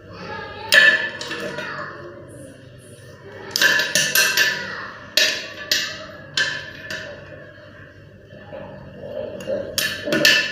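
A series of sharp knocks and clinks at irregular intervals, each ringing briefly like a struck hard object. They come singly, one about a second in, then a quick cluster, several spaced ones, and a pair near the end.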